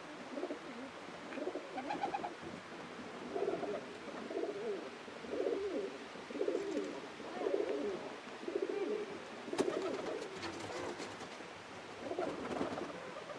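Domestic pigeons cooing, a run of low coos about one a second, a short pause, then another coo near the end. A sharp click sounds about ten seconds in.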